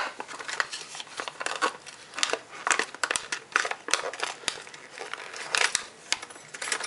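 A package of small air cleaner hold-down clamps being opened by hand: irregular crinkling and rustling with many sharp clicks.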